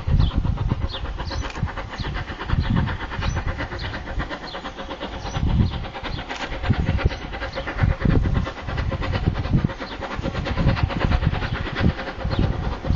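Steam locomotive 34067 Tangmere, a Bulleid Battle of Britain class Pacific, approaching from a distance: an uneven low rumble that surges and fades every second or so.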